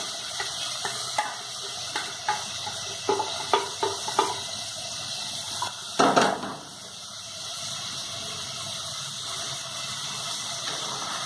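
A metal spoon knocking and scraping in an aluminium pressure cooker as cooked black beans and meat are tipped out into a pot, a series of sharp clacks. About six seconds in comes the loudest clunk, as the pressure cooker is set down on the gas stove, and then a spoon stirs the pot, over a steady hiss.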